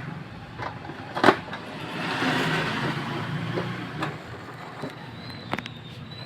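Epson L120 inkjet printer's paper-feed roller and gears working: a click about a second in, a whirr lasting about two seconds, then a couple more clicks, with a faint thin high whine near the end over a low hum.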